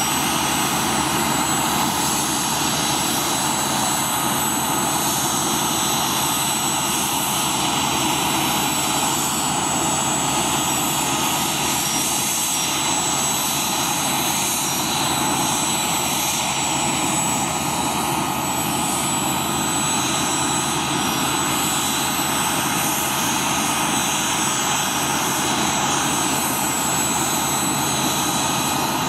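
Boeing CH-47 Chinook's twin turboshaft engines running steadily on the ground before take-off: a high, steady turbine whine over an even rush.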